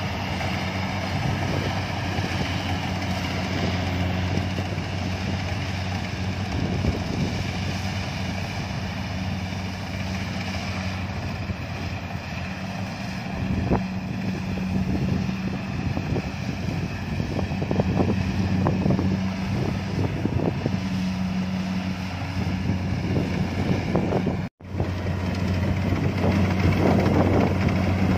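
Kubota DC70 combine harvester's diesel engine running steadily while harvesting rice, a constant low hum. Wind buffets the microphone at times, and the sound breaks off for an instant near the end.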